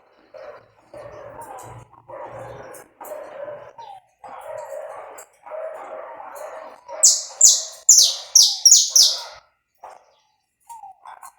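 Saffron finch (canário da terra) singing: quieter, lower chattering phrases, then about two-thirds of the way in a loud run of about six quick notes, each sweeping downward.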